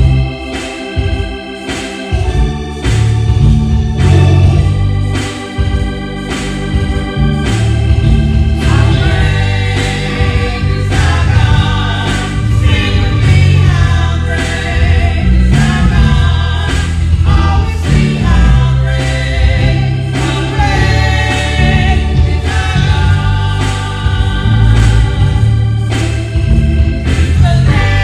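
Gospel music: organ chords over a steady beat, with singing coming in about a third of the way through.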